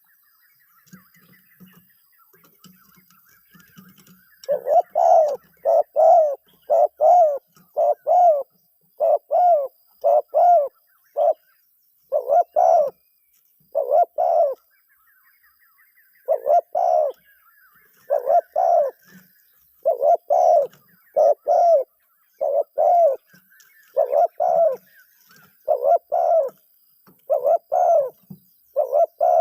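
A decoy dove cooing a fast series of short, loud notes, about two a second, calling to lure wild doves. The calls start a few seconds in and pause briefly near the middle before resuming. Faint chirps from other birds sound behind it.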